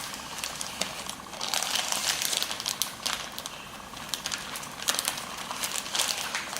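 Plastic packaging crinkling and crackling in irregular bursts as a new replacement laptop LCD panel is handled and unwrapped.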